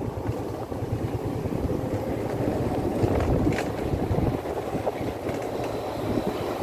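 Motorbike on the move: a steady low rumble of engine and road noise, with wind buffeting the microphone.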